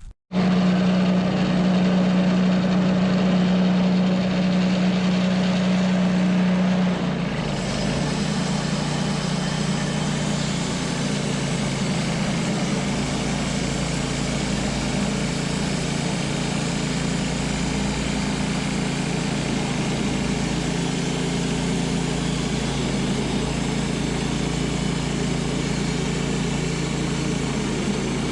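Wood-Mizer LT10 bandsaw mill running steadily. About seven seconds in the sound changes and a steady hiss joins the motor hum as the band blade saws through a soft cottonwood cant.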